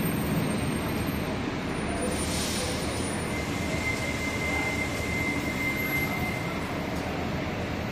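Cincinnati Metro diesel-electric hybrid transit bus running as it moves slowly through an enclosed concrete terminal, its sound echoing off the walls. A short hiss comes about two seconds in, and a high steady whine is heard for about three seconds through the middle.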